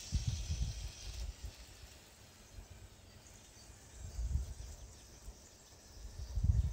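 Outdoor field ambience: wind buffets the microphone in uneven low rumbles, strongest near the end, over a steady high hiss of insects in the grass. The small electric motors of the receding tracked vehicle are not clearly heard.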